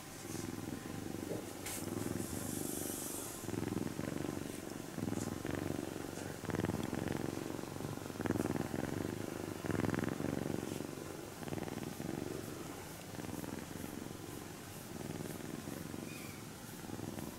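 Sleeping kitten purring steadily as it is stroked, the purr swelling and easing about once a second with its breathing.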